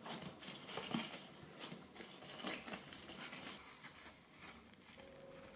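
Black nitrile-gloved hands working bread dough and handling baked semolina rolls: faint, irregular rustling and crackling.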